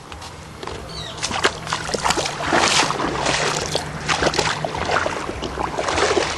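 River water splashing and sloshing in quick, irregular bursts, loudest about halfway through, over a steady low rumble.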